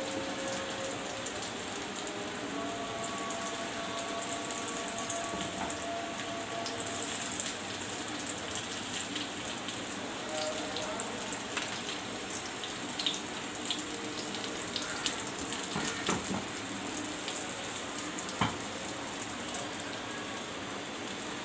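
Oil sizzling and crackling steadily around sago and potato cutlets shallow-frying in a pan, with a few sharp taps of a plastic spatula against the pan as they are turned.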